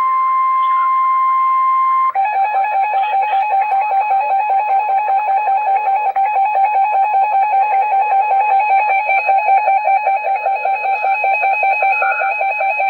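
Emergency Alert System attention tones: a steady single-pitch beep that cuts off about two seconds in, followed by a lower warbling alert tone that pulses about five times a second.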